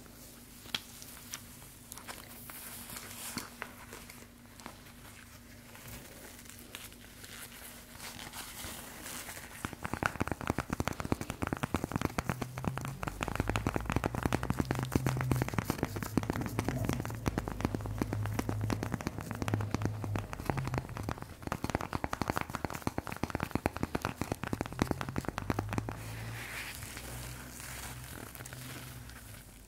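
Close-up crinkling and crackling, faint and sparse at first, then dense and rapid from about a third of the way in, with low thuds beneath, before easing off near the end.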